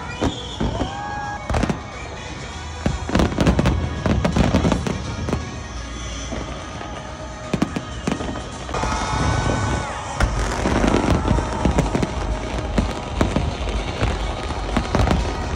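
Fireworks going off in a dense display: repeated sharp bangs and crackling, heaviest a few seconds in and again after the middle, over music.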